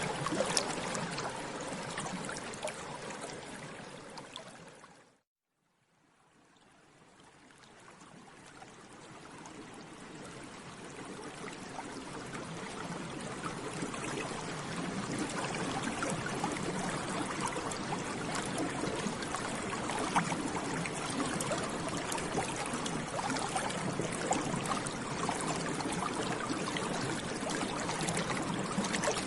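Water bubbling, a steady stream of small bubbles popping and gurgling. About four seconds in it fades out to a moment of silence, then fades slowly back in and carries on steadily.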